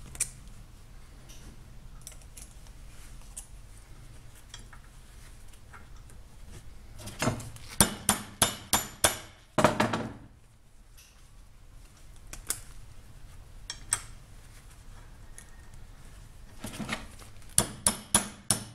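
Sharp metal-on-metal taps and clinks as a sharpened old drill bit is worked against the steel shield of a ball bearing at a vise to pry the shield off. A quick run of about six taps comes about seven seconds in, a few single clicks follow, and another quick run comes near the end.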